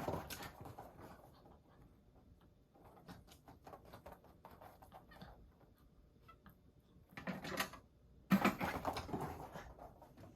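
A dog playing with a ball on its own: scattered light ticks and patter on the floor, with two louder bursts of noise about seven and eight and a half seconds in.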